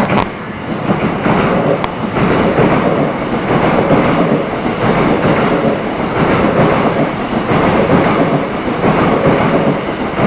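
E261 series Saphir Odoriko limited express passing through the station without stopping: a loud, steady rumble of wheels on rails, with a couple of sharp clicks in the first two seconds.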